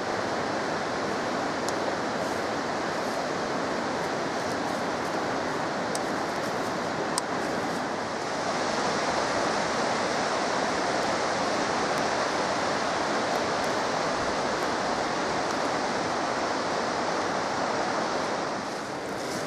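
Steady rush of water from a mountain river, a little brighter from about eight seconds in.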